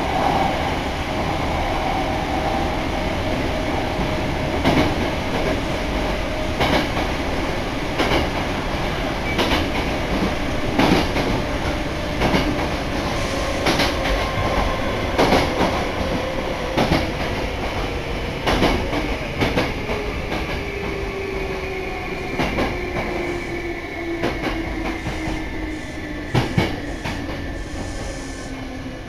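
Hankyu commuter train running, heard from inside the car: a steady rumble with the wheels clacking over rail joints every second and a half or so. A motor whine falls slowly in pitch and the rumble eases toward the end as the train slows.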